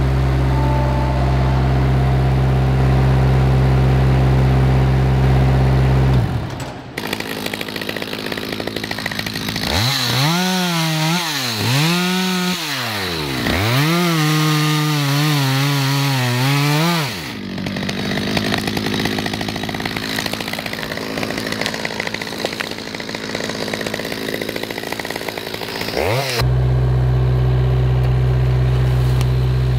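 A small diesel engine running steadily, then after a cut a Stihl MS 200 chainsaw revving up and down as it cuts into a tree. Near the end a steady diesel engine running again, this time the forwarder at work in the forest.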